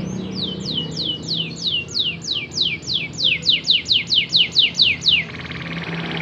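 Domestic canary singing: a long run of rapid downward-sweeping whistled notes, about four a second, that gives way a little after five seconds to a buzzy rolling trill.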